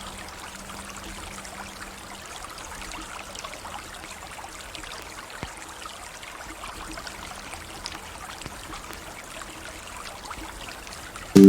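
River water flowing steadily, with small trickles and splashes through the running noise. Just before the end, music with sustained low notes comes in abruptly and much louder.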